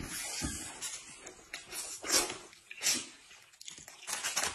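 Close-up slurping and chewing of people eating, with short loud slurps about two seconds in, near three seconds and just before the end, as a wide flat noodle strip is sucked in.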